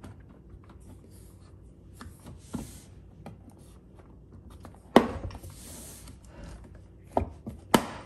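Plastic lower cover panel and its insulation being handled and fitted under the front of a dishwasher: scattered faint clicks and rubbing, a sharp knock about five seconds in with a short rustle after it, then two more sharp clicks near the end.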